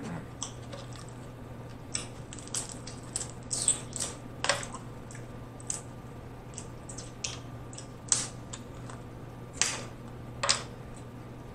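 Cooked snow crab leg shells being cracked and snapped apart by hand: a scattered run of sharp cracks and clicks, the loudest a few seconds in and several more near the end.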